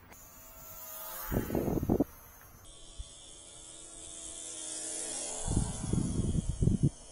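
Electric motor and propeller of a small Volantex Mustang RC plane whining, rising in pitch in the first second and, after a cut, falling in pitch for a few seconds. Two spells of loud, low rumbling, one under the rising whine and the other taking over from the falling whine, are the loudest sounds.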